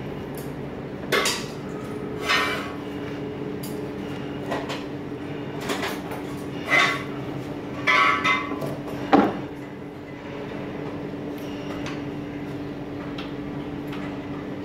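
Sharp metallic clinks, about six of them spread through the first nine seconds, as crocodile-clip test leads are handled and clipped onto the copper segments of a DC armature commutator for segment-to-segment insulation testing. A steady low hum runs underneath.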